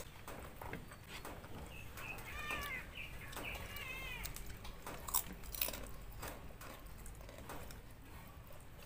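Eating sounds at a meal: chewing and light clicks of spoons and fingers on plates, with two sharper clicks a little past the middle. A few short, arching high-pitched calls sound about two to four seconds in.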